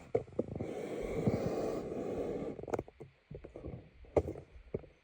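A scraping rustle for about two seconds, then three separate sharp knocks, from parts of a gas furnace being handled while it is opened up.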